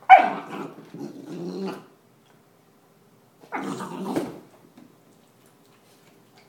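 Greater Swiss Mountain Dog puppy growling in play over a toy, a run of sounds lasting about two seconds, then a second, shorter burst a little past halfway.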